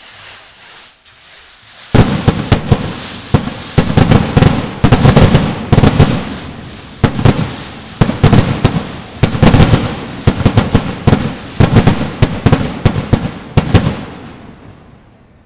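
A long, rapid string of loud firecracker bangs, irregular and several a second, starting suddenly about two seconds in and dying away near the end.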